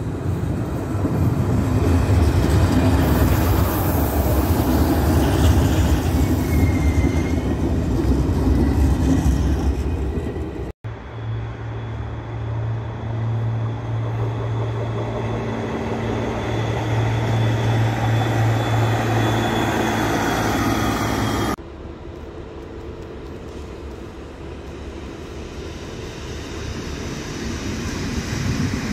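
Passenger railcars in three cut-together passes. First a low rumble of a train running into the station, with a brief wheel squeal; then a steady engine drone from a train passing across fields; then a quieter rumble of another railcar moving through the station, growing louder near the end.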